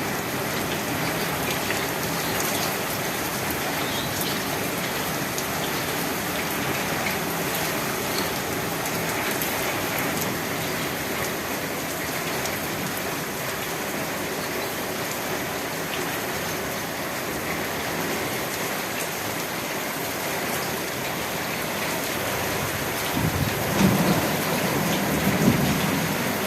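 Steady heavy rain falling, an even hiss of drops on surfaces. Near the end a louder low rumble swells up over it.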